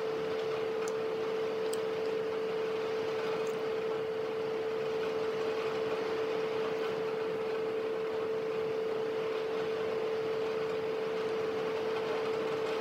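A steady hum at one unchanging pitch over an even hiss, with a few faint ticks in the first few seconds.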